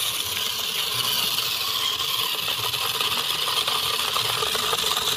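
Small electric motor of a toy RC off-road truck whirring steadily as its tyres churn through loose dry rice grains, with a constant rattle of many small ticks from the grains and gears.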